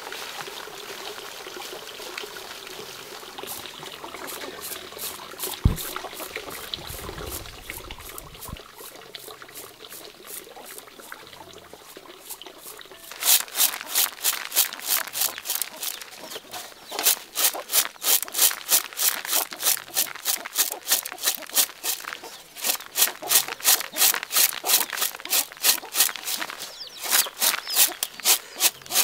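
Hulled rice shaken in a shallow winnowing tray: grains rasp and rattle against the tray in a steady rhythm of about two to three strokes a second, spilling onto a plastic tarp. The first half is quieter, with one sharp knock about six seconds in.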